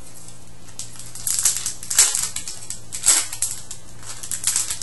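Foil wrapper of a hockey card pack crinkling and crackling as it is torn open by hand, starting about a second in, with the sharpest crackles in the middle.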